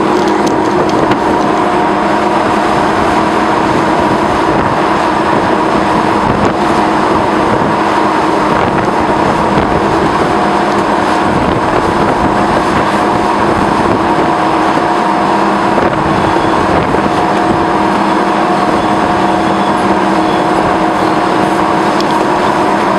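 White Pass & Yukon diesel locomotive running steadily close by, its engine drone, with a few held tones, over the rumble of the train rolling on the rails.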